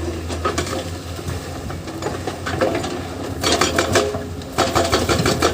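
Diesel engine of a Hyundai PC210 hydraulic excavator running steadily, with bursts of rattling and clattering as the bucket works dirt and rock, loudest in the second half.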